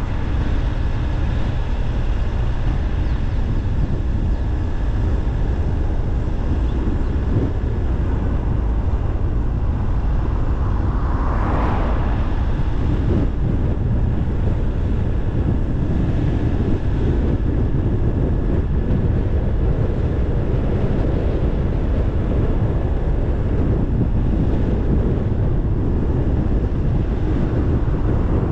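Car being driven along a road: a steady low rumble of road and wind noise, with a brief swell near the middle.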